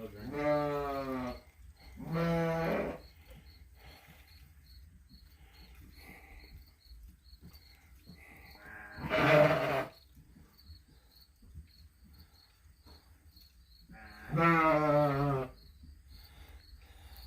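A farm animal bleating four times. Each call lasts about a second and has a quavering pitch.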